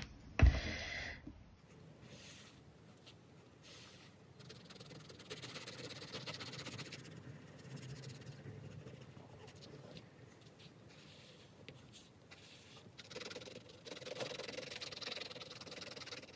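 Derwent Inktense pencil scratching on paper as a pink swatch is shaded in with back-and-forth strokes, faint and in two stretches. A short knock about half a second in.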